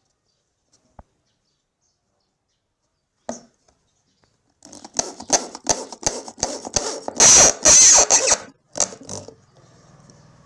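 A woodworking tool working wood: a single knock, then about five seconds of rapid, irregular scraping and knocking strokes, loudest and most continuous for about a second near the end.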